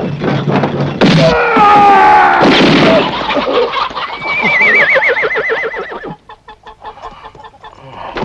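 A horse whinnying: one long quavering call that falls slowly, about four seconds in. Before it, about a second in, a loud stretch of knocks and cries.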